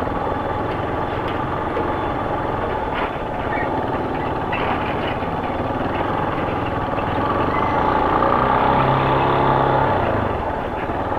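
Motorcycle engine running while riding through town traffic, with wind and road noise. The engine grows louder for a few seconds past the middle, then eases off near the end.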